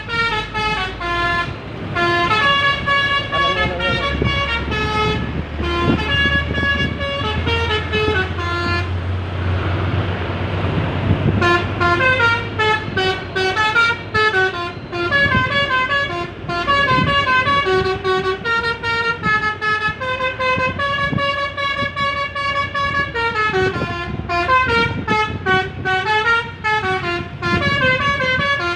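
Bus 'telolet' multi-tone horn of the Basuri type playing a quick melody of stepped notes again and again. There is a break of about two seconds a third of the way in, where only a low rumble is heard.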